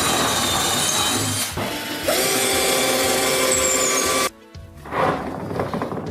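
Power drill running in two long bursts, drilling the 1/4-inch mounting holes for a motorcycle tie-down anchor, followed by some light clattering.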